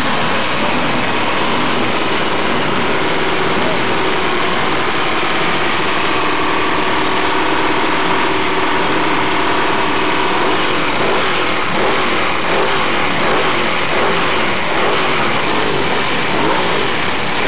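Racing superbike engines running on the starting grid, Ducati V-twins among them, idling steadily and then blipped repeatedly in the second half.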